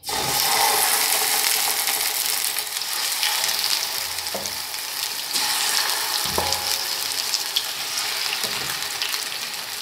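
Raw chicken pieces sizzling in hot oil as they are laid in the pan to sear; the sizzle starts suddenly as the first piece goes in and keeps going, with a couple of soft knocks as more pieces are added.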